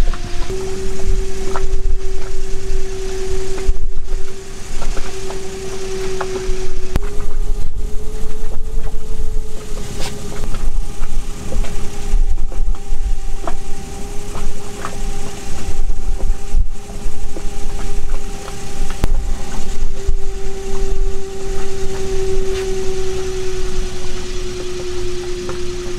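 A motor running steadily, a droning hum that shifts slightly in pitch a few times, over a low rumble with scattered light knocks.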